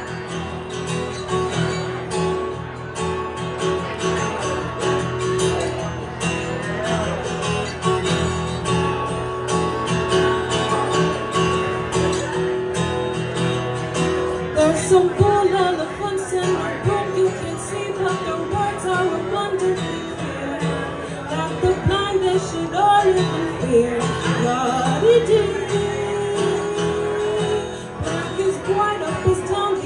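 Live acoustic guitar playing as accompaniment, with a woman's voice singing into a microphone that comes in strongly about halfway through.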